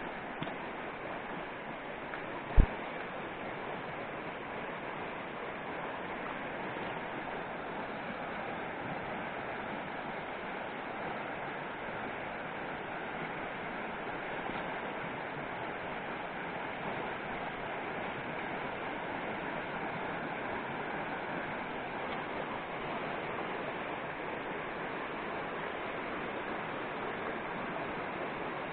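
Shallow mountain stream running over stones and riffles, a steady rushing of water, with one sharp knock about two and a half seconds in.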